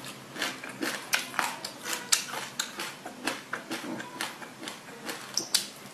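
Close-up eating sounds of passion fruit pulp with sesame seeds: a metal spoon scraping and clinking in a glass bowl, and wet, crunchy chewing of the seeds. They come as a run of sharp, irregular clicks and crackles, several a second.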